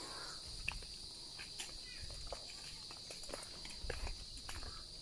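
Insects chirring in one steady high-pitched drone, with footsteps and scattered light scuffs and thumps of walking on a dirt path.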